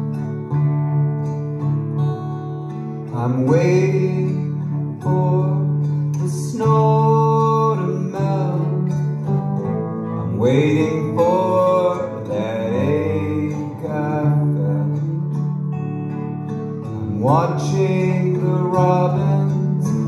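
Live folk-rock trio playing an instrumental passage: strummed acoustic guitar with electric guitar and bowed cello, over a steady low bass. Sliding notes rise three times.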